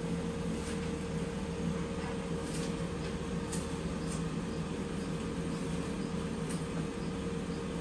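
Steady background hum with a faint constant tone, broken by a few light ticks.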